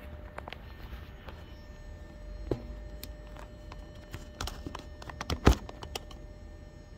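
Footsteps and a few knocks on a concrete floor, the loudest about five and a half seconds in, over the steady low rumble of a 2008 Porsche Cayenne S's V8 idling after a cold start.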